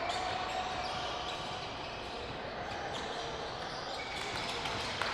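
Basketball being dribbled on a hardwood gym floor during a game, over a steady background of gym noise.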